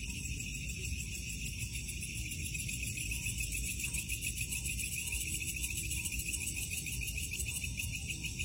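A chorus of night insects trilling steadily at several high pitches, over a low, steady rumble.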